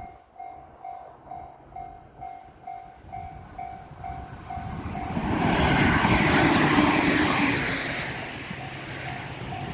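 Japanese level-crossing warning bell ringing in a steady repeating ding, about three a second, as a train approaches. From about five seconds in, the passing train's running noise swells over the bell for a few seconds and fades, and the bell is heard ringing on near the end.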